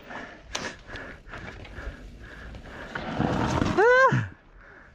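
Mountain bike tyres crunching and rattling over a rocky gravel trail, with scattered clicks. About three seconds in, a louder scraping rush through dirt and a short cry that rises and then falls as the rider crashes.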